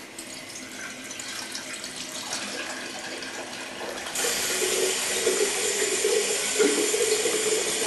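Bathroom sink faucet running, a weaker flow at first, then turned up to a strong gush of water about four seconds in.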